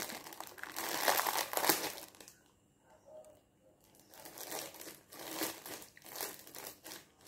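Clear plastic bag of kerupuk crackers crinkling as a hand rummages in it. The crinkling is dense for the first two seconds, then comes back as scattered rustles after a short lull.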